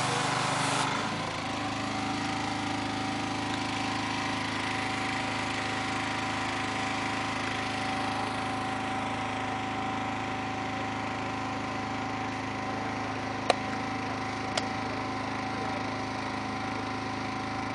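A small engine running steadily, a constant hum with a fixed whine over it. A loud hiss cuts off about a second in, and two sharp clicks come near the end.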